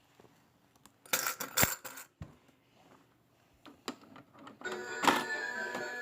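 Coins clattering in a mini toy claw machine, then the machine's electronic tune starts playing.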